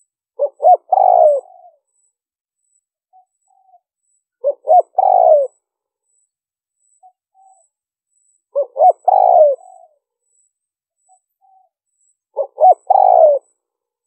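Spotted dove cooing: four phrases about four seconds apart, each two short notes followed by a longer coo that falls in pitch. Soft short notes come between the phrases.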